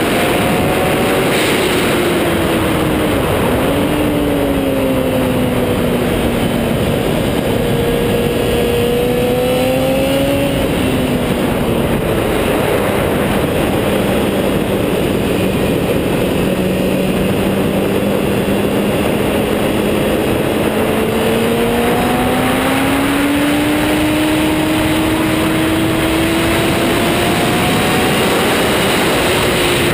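Sport motorcycle engine on a track lap, heard from the rider's chest with heavy wind rush over the microphone. The engine pitch drops sharply a few seconds in and again about a third of the way through, holds low for a long stretch, then climbs steadily near the end.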